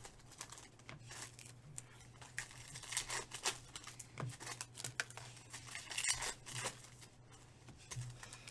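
Foil wrappers of 2017 Panini Chronicles baseball card packs being torn open and crinkled by hand: irregular crackly rustling.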